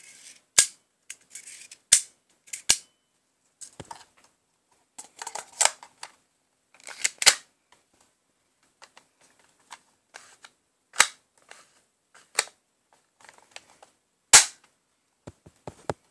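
Airsoft Beretta M9 replica pistol being worked by hand: about eight sharp mechanical clicks and clacks from its parts, with quieter handling rustle and small clicks in between.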